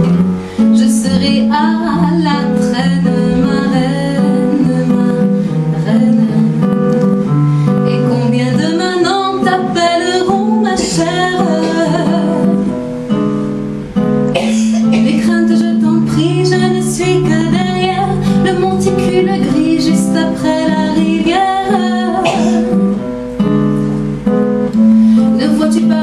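Nylon-string classical guitar played in a bossa nova rhythm, with a woman singing over it.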